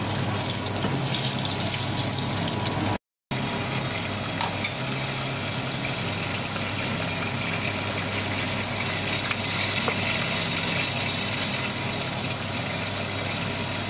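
Pork in shrimp-paste sauce simmering in a frying pan: steady bubbling and sizzling as the sauce cooks down and thickens, over a low steady hum. The sound drops out for a moment about three seconds in.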